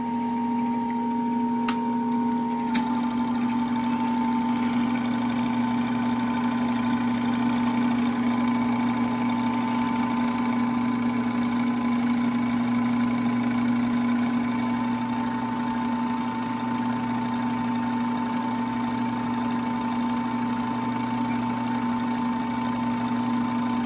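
Sears 'Tower' home-movie projector running with film threaded: a steady motor hum under an even mechanical whir. Two clicks come about two and three seconds in, after which the running turns a little noisier.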